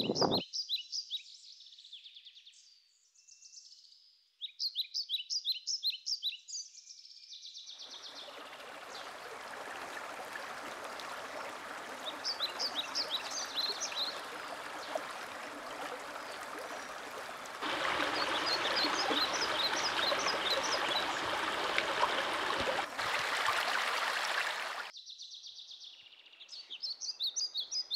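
Songbirds singing in short, rapid high chirping phrases. About eight seconds in, a small forest brook starts up: water rushing and splashing over stones, an even rush under the birdsong. It grows louder partway through and cuts off suddenly near the end, leaving the birds alone again.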